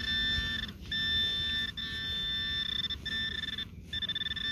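Handheld metal-detecting pinpointer sounding a high, steady electronic alert tone in stretches of about a second with short breaks, as its tip is pushed through the dug soil: it is picking up a metal target in the soil, here a small coin.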